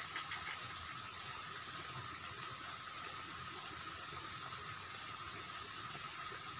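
Steady ditch-side ambience: a constant hiss with two steady high tones over a low rumble, with water running in the channel.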